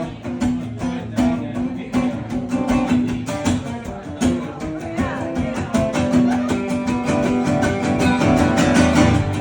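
Acoustic guitars strumming a brisk instrumental breakdown of an up-tempo country song in G, with steady rhythmic strokes under a held melody line.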